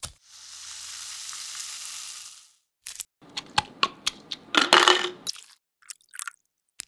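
A steady hiss for about two seconds, then a muddler mashing Chinese bayberries in a measuring cup: a dense run of wet, crunchy squelches and knocks, followed by a few soft clicks.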